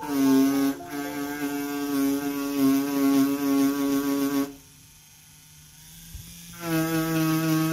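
EZ Dagger V2 short pen rotary tattoo machine running with a steady electric motor hum. It stops about four and a half seconds in and starts again about two seconds later, running at a slightly higher pitch.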